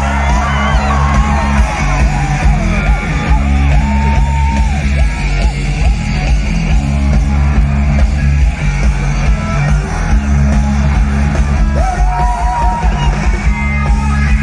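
A rock band playing live through a festival PA, loud with heavy bass, heard from inside the crowd, with singing and crowd voices yelling along.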